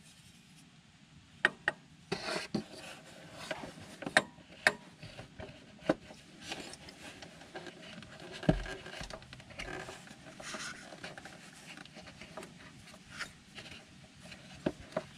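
Scattered small clicks, taps and knocks of a hand and tools against metal engine parts, with rubbing and scraping in between, and no steady rhythm.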